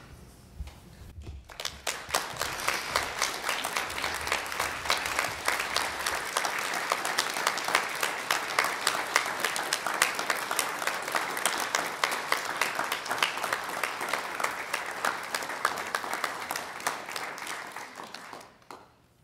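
Audience applauding: dense clapping that builds up about a second and a half in, holds steady, and dies away near the end.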